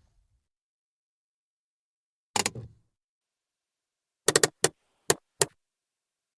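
Car handbrake lever being worked: a short ratcheting clatter about two and a half seconds in, then five separate sharp clicks over about a second, from the lever's ratchet.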